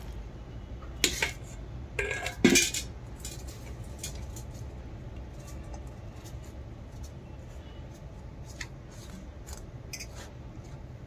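Flour and water being mixed by hand in a stainless steel bowl: a few sharp metallic knocks against the bowl about a second and two and a half seconds in, then light scattered clinks and scraping of fingers and rings on the steel, over a low steady hum.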